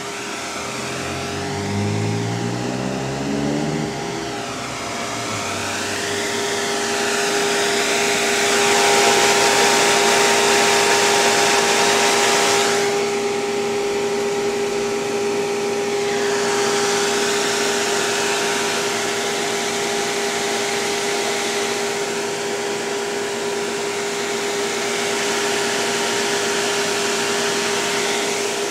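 Electric bus's cooling fan running: a steady whirring hum with a strong rushing of air. The rush swells about eight seconds in, falls away briefly around thirteen seconds, then picks up again; a low tone climbs in pitch during the first few seconds.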